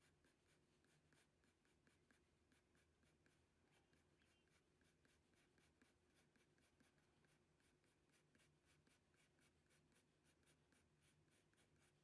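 Faint scratching of a graphite pencil on drawing paper as short, quick strokes are sketched, several a second, laying in feather texture lines.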